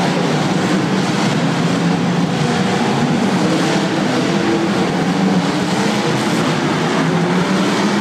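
Many demolition derby cars' engines running and revving together in a loud, steady din that echoes around an indoor arena.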